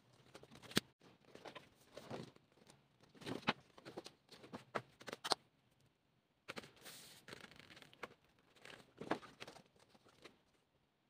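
Paper and thin card being handled: sheets shuffled, tapped and slid against each other in a string of short rustles and clicks, with a longer paper rustle about seven seconds in as a folded poster is opened.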